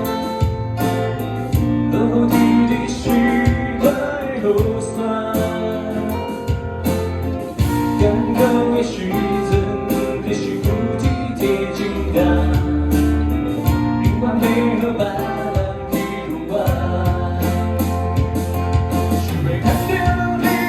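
A live band playing a ballad-paced song: a singer over guitars, electric bass and a drum kit.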